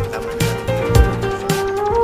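Background music: a pop track with plucked guitar and a steady drum beat.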